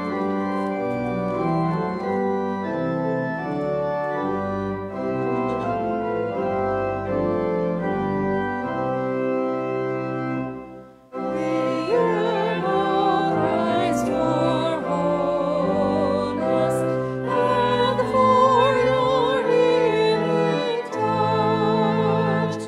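Organ playing a hymn introduction in sustained chords. About eleven seconds in, after a short break, singing with vibrato comes in over the organ for the first verse.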